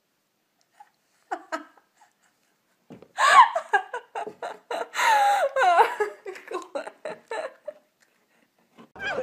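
A woman laughing hard in bursts, starting about three seconds in and breaking into short, quick pulses of laughter before it fades.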